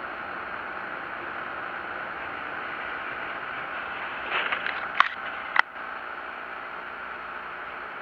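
Steady hiss of road and rain noise inside a moving car, picked up by a dashcam, with two short sharp clicks about five seconds in.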